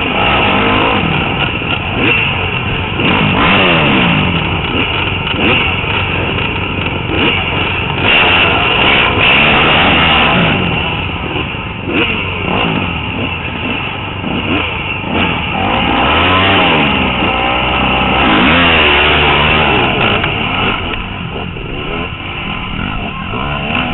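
Several dirt bike engines revving hard and shifting, a pack of bikes racing off the start, heard from on board one of the bikes. The pitch climbs and drops again and again as the riders go up through the gears and back off.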